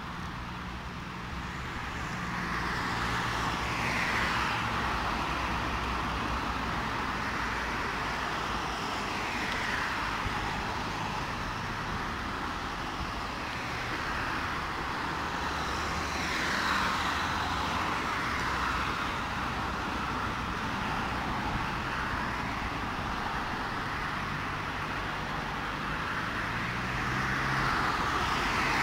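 Road traffic: a steady hiss of tyres with vehicles passing every few seconds, each swelling and fading away, over a low engine hum.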